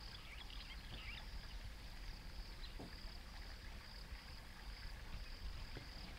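Faint ambient sound: a steady high buzz that swells and fades about once a second, over a low rumble, with a few brief high chirps in the first second or so.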